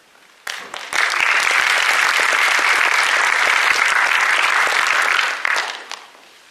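Audience clapping: the applause starts about half a second in, swells quickly, holds steady, then dies away at about five and a half seconds.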